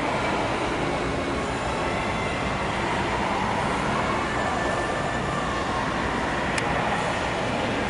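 Steady, dense background din with no clear pitch or rhythm, and a single sharp click about six and a half seconds in.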